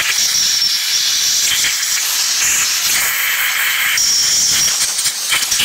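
Compressed-air blow gun hissing as it blows out a brake caliper assembly. There is a faint whistle that comes and goes.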